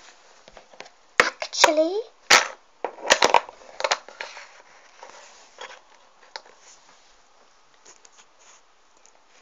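Small plastic toy figures being handled on a tabletop: several sharp clicks and taps in the first few seconds, then faint scattered handling noise, with a child saying a single word.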